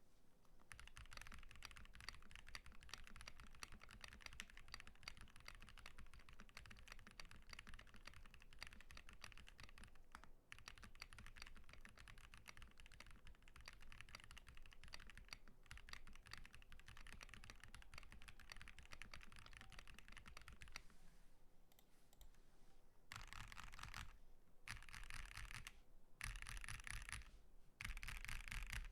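Custom 60% mechanical keyboard being typed on: lubed Vertex V1 linear switches in a tape-modded acrylic Tofu60 Redux case with Domikey Semiconductor keycaps. A long run of fast continuous keystrokes, a pause of about two seconds, then four short bursts of rapid typing near the end.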